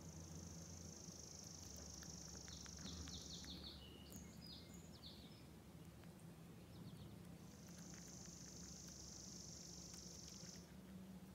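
Faint outdoor ambience: a high, steady trill of about three seconds comes twice, at the start and again about halfway through, with a few short bird chirps between, over a low hum.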